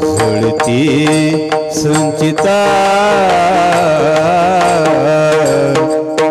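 Marathi devotional abhang music: steady held notes under a melody line that wavers in pitch through the middle, with frequent sharp percussion strokes.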